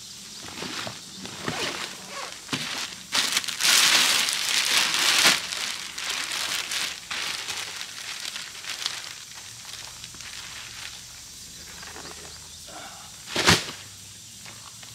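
Plastic wrapping rustling and crinkling as a rolled inflatable paddleboard is pulled from its bag and unwrapped, loudest for a couple of seconds a few seconds in. One sharp knock near the end.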